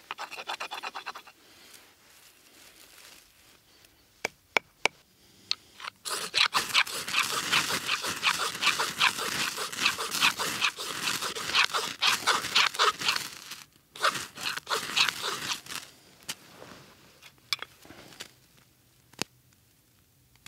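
Ferrocerium rod struck again and again with a scraper, a run of harsh rasping strokes a few per second for about ten seconds, throwing sparks into a bundle of dry grass tinder. Before that come crunching and rustling of dry grass stems, and the run ends in a few scattered scrapes.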